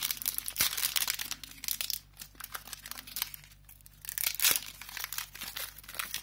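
Foil Pokémon booster pack wrapper crinkling and tearing as it is worked open by hand, in irregular bursts.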